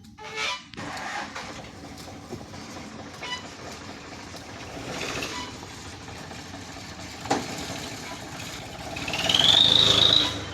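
Tractor engine running steadily, with a single sharp click about seven seconds in. Near the end a loud high-pitched squeal rises and then holds.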